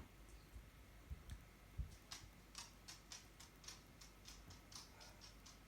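Near silence with faint, light ticks, about three a second, starting about two seconds in, and a couple of soft low thumps before them.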